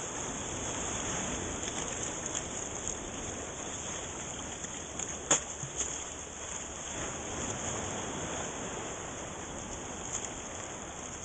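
Shallow seawater sloshing and splashing as someone wades through it, with a sharp knock about five seconds in.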